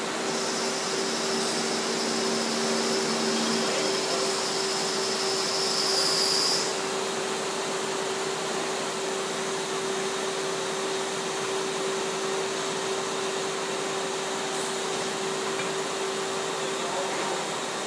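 Steady drone of industrial machinery running, with a constant hum. A high hiss and a lower tone sound over it for the first few seconds; the hiss stops about six and a half seconds in.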